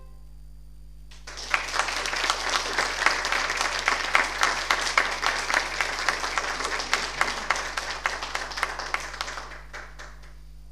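Audience applauding: a dense patter of hand claps that starts about a second in, holds steady, and dies away near the end.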